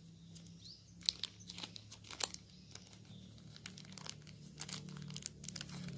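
Small clear plastic bag crinkled and picked open by fingers: scattered faint crackles and snaps, busiest in the second half.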